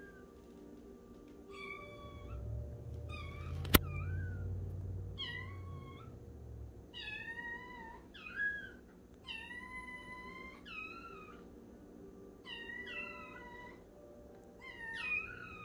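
Ragdoll kittens meowing, about ten high, thin calls spread out one after another as the separated siblings call to each other. A single sharp click comes about four seconds in.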